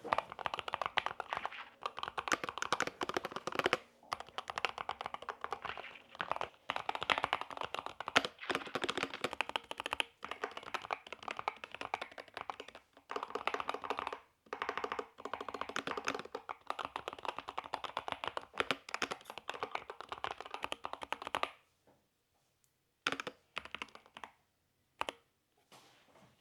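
Typing on a Keychron K2 HE keyboard with magnetic switches: rapid, continuous key clacks broken by brief pauses. The typing stops about 21 seconds in, followed by a few short bursts of keystrokes near the end.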